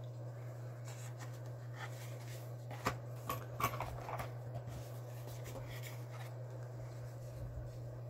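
Handling noise from boxed Zippo lighters being shuffled and picked out of a wooden cigar box: a handful of light clicks, taps and rustles, mostly in the first half, over a steady low hum.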